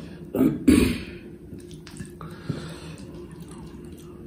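Eating by hand: two short, loud wet sounds about half a second apart near the start, then quieter squishing as rice and curry are mixed with the fingers, over a steady low hum.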